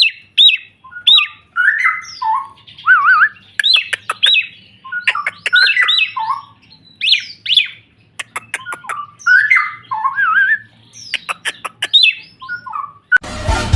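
A songbird singing a varied song of loud whistled notes that swoop up and down, with short runs of rapid clicks between phrases. Music comes in just before the end.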